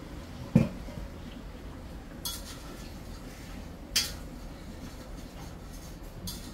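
Metal cookware handled at a stove: a dull knock about half a second in, the loudest sound, then three sharp metal clinks spaced about two seconds apart as a spoon strikes the frying pan while stirring.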